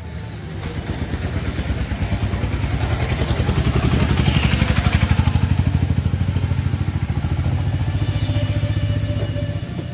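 Three-wheeled rickshaw under way on the road: a low, rapidly pulsing motor drone with some clatter, building over the first few seconds and then holding steady.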